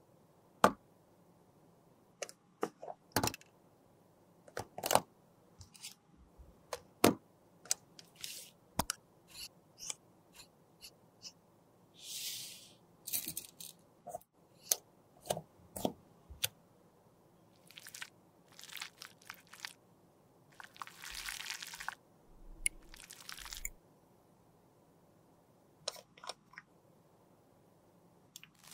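Close-up handling sounds of makeup being repaired: a string of sharp taps and clicks from tools against cosmetic containers. Two longer scraping, crunching passes come in the middle and later on, from tools working product out of a lipstick tube and a glitter pot.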